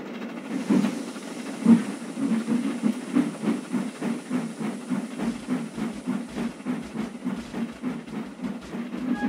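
Steam locomotive puffing along with its train over a steady hiss of steam. Two strong chuffs come about one and two seconds in, then an even beat of about three chuffs a second.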